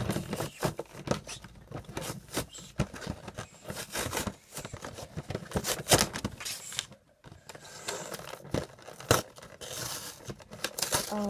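Cardboard and plastic toy packaging being torn open and crinkled by hand to get an action figure out of its box: irregular rips, crinkles and sharp clicks, with a couple of louder snaps.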